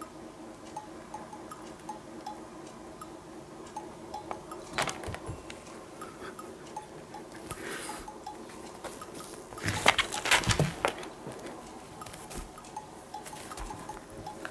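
Light, plinking background music with repeating notes. A single knock comes about five seconds in, then a short burst of scuffling knocks and rustles about ten seconds in, as the cat scrabbles at a rope on the tatami.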